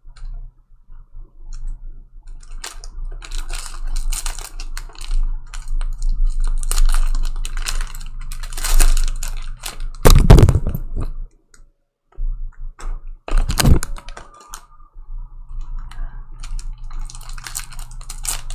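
Crinkling and rustling as cellophane-wrapped trading card packs are torn open and the cards handled, with two heavier thumps about ten and thirteen and a half seconds in.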